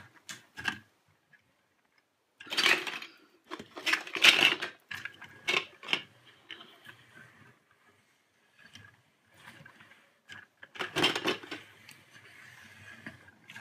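Plastic Lego Duplo toy trucks handled and moved on a tabletop: clicks and clattering in several short bursts, with faint handling noise in between.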